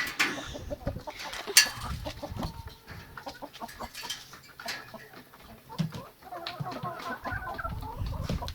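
Chickens clucking, with scuffling and clattering as a bird is chased. A sharp knock about a second and a half in is the loudest sound.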